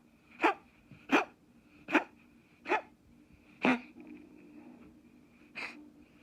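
A cat hacking in a run of short sharp coughs, six in all, about one every 0.7 s with a longer pause before the last. The owner is unsure whether it is choking or coughing, as the cat has eaten nothing recently.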